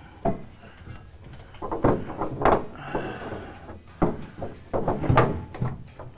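Metal gooseneck hitch plate clunking and scraping against a pickup's underbody as it is worked into position by hand, a series of irregular knocks.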